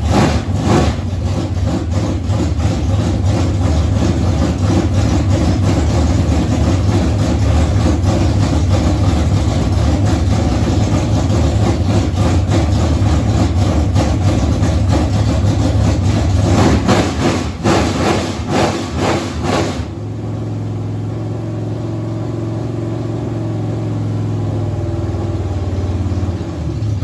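The 1974 Chevy Nova's engine running with no mufflers fitted, blipped and revved repeatedly for about twenty seconds, then settling to a steadier, slightly quieter idle until it cuts off abruptly at the end.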